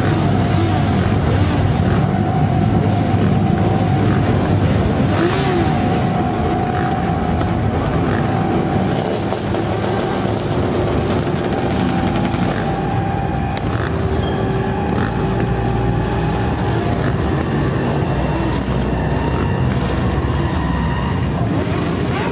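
Many motorcycle engines running and revving together in a dense, steady mass of sound, with a few steady held tones sounding above it.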